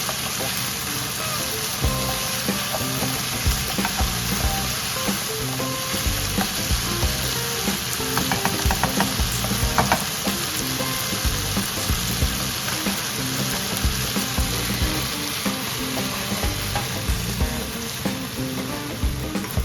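Food sizzling in a hot frying pan while it is stirred, with a run of sharp clicks of the utensil against the pan about halfway through. Background music plays underneath.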